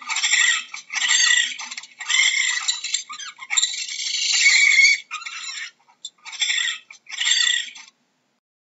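Raccoon chittering and squealing: a run of high-pitched, chattering calls in several bursts, broken by short pauses in the second half.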